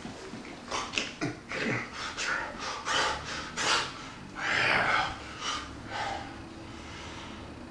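A person huffing and panting in quick, sharp breaths, about two a second, while head-banging. The breaths die away about six seconds in.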